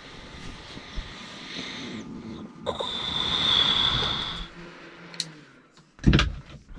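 Bedding and a sleeping bag rustling as someone shifts and pulls the covers around in bed, with a longer hissing swish in the middle and a few loud knocks near the end.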